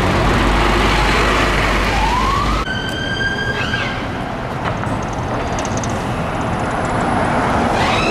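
A bus passing close with a low engine and tyre rumble, then an approaching ambulance's siren wailing. The siren tone rises about two seconds in, holds steady for a couple of seconds, and rises again near the end.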